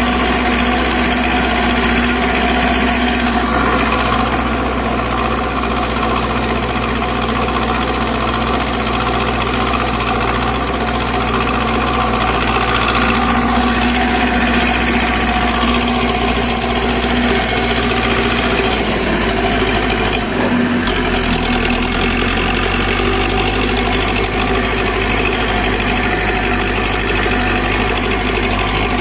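Zetor 5745 tractor's diesel engine running steadily; its low note shifts a little about two-thirds of the way through.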